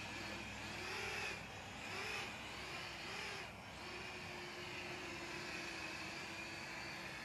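DeeRC D20 mini quadcopter's brushed motors and propellers whining in flight. The pitch rises and falls several times in the first few seconds as the throttle changes, then holds steadier.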